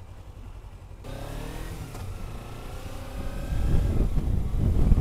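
Motorcycle engine accelerating, its note rising from about a second in, then a louder low rumble of wind on the microphone builds near the end as speed picks up.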